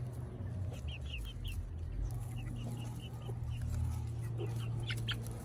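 Flock of local chickens calling: many short, high notes in quick series, over a steady low hum.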